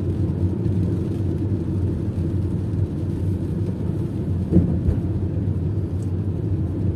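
Steady low rumble of a car on the move, engine and tyre noise heard from inside the cabin, with a single brief knock about four and a half seconds in.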